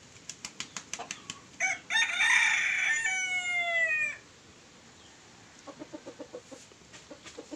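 A rooster crows once, a loud call of about two and a half seconds that falls in pitch at the end. A quick run of clicks comes just before it, and near the end a rapid run of short low notes.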